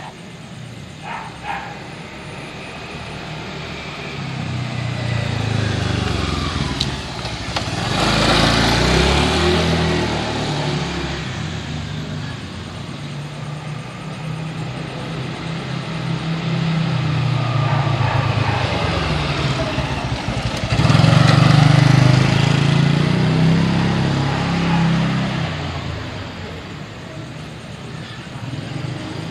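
Road traffic: motorcycles and cars passing by, engines rising and fading away. The two loudest passes come about eight seconds in and about twenty-one seconds in.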